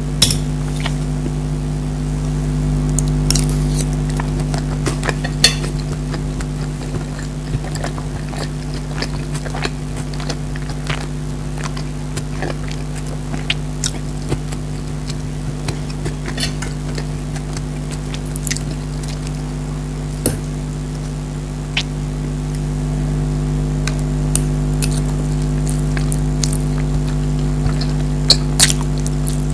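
Close-up eating sounds: scattered sharp clicks and clinks of cutlery against a plate, with chewing, over a steady low hum.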